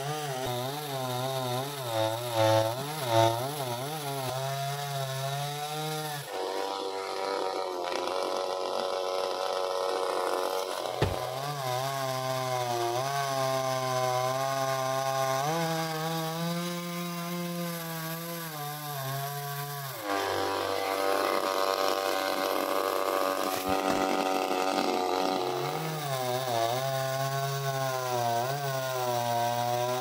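Two-stroke chainsaw running hard while cutting into a coconut palm trunk, its engine pitch rising and dipping as the chain bites, with steadier spells in between.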